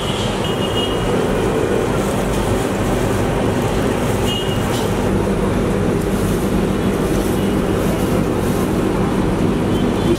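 A steady mechanical hum with a low rumble that holds at one level throughout.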